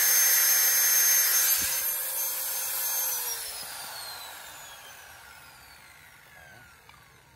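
Electric angle grinder running at full speed, grinding a thin steel rod, then switched off about three seconds in; its whine falls steadily in pitch and fades as the disc spins down.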